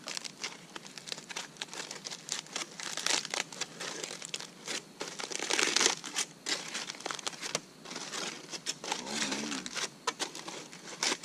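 Aluminium foil crinkling and rustling as a foil-wrapped baked apple is peeled open by hand, a dense run of crackles that is loudest about halfway through.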